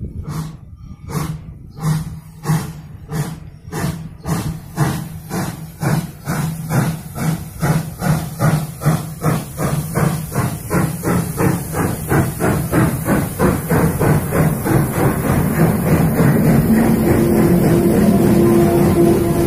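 PKP class Ol49 two-cylinder steam locomotive working a passenger train, its exhaust chuffing in sharp, even beats that speed up from about one and a half a second to about four a second. It grows steadily louder as it comes close and passes by amid hissing steam.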